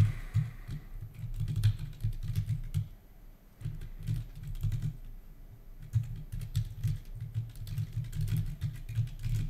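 Computer keyboard typing in quick irregular bursts of keystrokes, with a brief lull about three seconds in.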